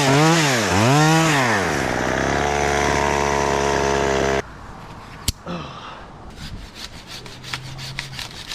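Chainsaw running at high revs, its pitch dipping low twice and rising again, then holding steady at a lower speed. About four and a half seconds in the throttle is let off and the saw drops to a faint idle, with a single sharp snap about a second later.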